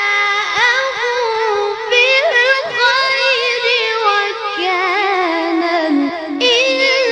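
A boy's solo melodic Quran recitation (tilawah), a high voice with ornamented, wavering pitch. A long phrase slides down to a low held note, and near the end a new phrase begins high.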